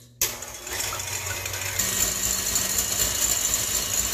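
KitchenAid tilt-head stand mixer switched on just after the start, its motor running and the wire whisk beating egg whites in a steel bowl. About two seconds in it steps up to a higher speed with a steadier hum, whipping the whites toward soft peaks.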